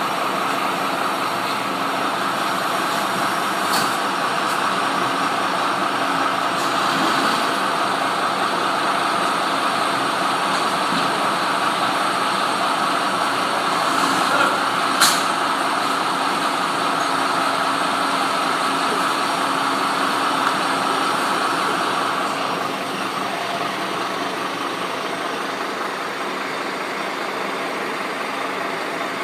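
Heavy vehicle's engine idling steadily, with a higher hum in it that drops away about three quarters of the way through; a couple of sharp clicks about halfway.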